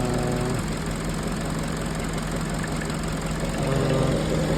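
Peugeot 207 petrol engine idling steadily while warming up after a rocker-arm repair, its idle not yet re-learned by the ECU.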